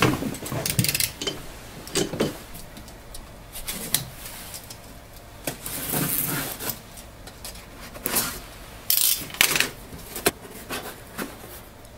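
Cardboard shipping box being handled and opened by hand: scattered rustles, scrapes and light knocks of the cardboard flaps and packing.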